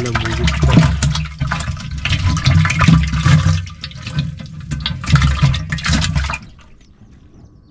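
Water pouring and splashing loudly off a fish trap as it is hauled out of the water, rushing and uneven, cutting off about six seconds in.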